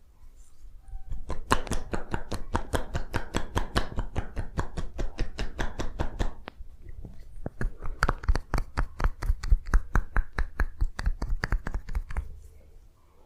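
Percussive hand massage: rapid, even hand strikes, about six a second, in two long runs with a short pause between.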